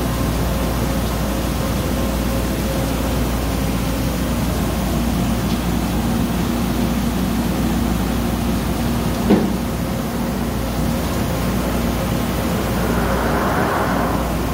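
Höfler HF 2000L CNC gear hobbing machine running, a steady mechanical hum with constant whining tones. A single sharp knock comes about nine seconds in, and a short hiss near the end.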